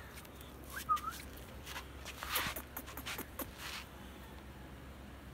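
Long-coat German shepherd puppies moving about on a concrete floor: scattered light clicks and scuffs of paws, with one short squeak about a second in.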